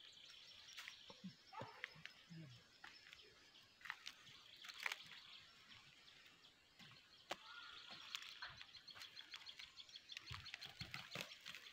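Near silence in a field: a faint, even high chirping in the background, with scattered small clicks and scrapes of hand tools working soil.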